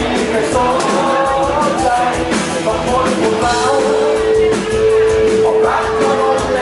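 Rock music with singing and guitar; a long held note comes in about halfway through.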